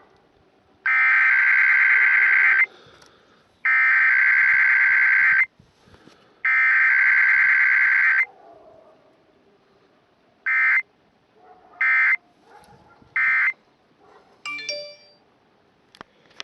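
Emergency Alert System SAME data bursts from a radio station's EAS encoder, for a Required Weekly Test. The header is sent three times as harsh digital bursts of about two seconds each, a second apart. About two seconds later come three short end-of-message bursts, with no attention tone or voice message between them.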